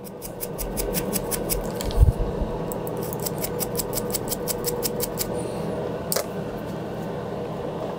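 Small stiff brush scrubbing soldering flux off a mouse circuit board in rapid short strokes, in two runs, over a steady fan hum. A thump about two seconds in and a single click near the end.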